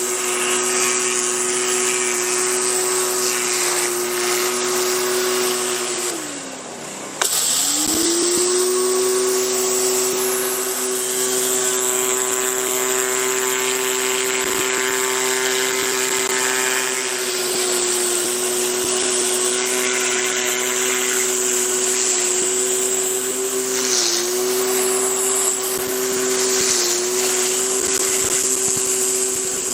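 Westinghouse WPX3400 gas pressure washer running with the Briggs and Stratton 6328 14-inch rotating surface cleaner spraying, a steady motor tone under a hiss of water spray. About six seconds in the spray cuts out and the tone sinks. About a second later the spray comes back abruptly and the tone climbs back to where it was.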